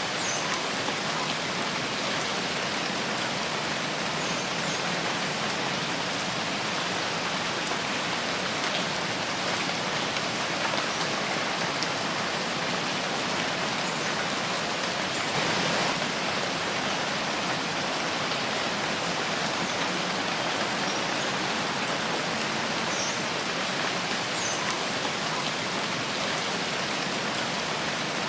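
Steady rain falling: an even hiss of many drops, briefly louder about halfway through.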